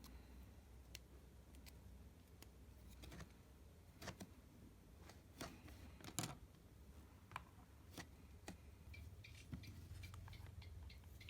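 Faint, scattered small clicks and taps of electronic components and a circuit board being handled, their wire legs pushed into the board's holes, over a low steady hum.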